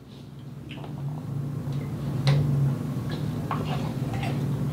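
Quiet eating sounds: a handful of light clicks and ticks as a metal fork picks food from a bowl and food is chewed, over a steady low hum.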